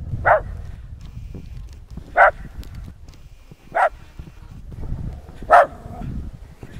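West Highland White Terrier barking: four single barks, each short and spaced about two seconds apart.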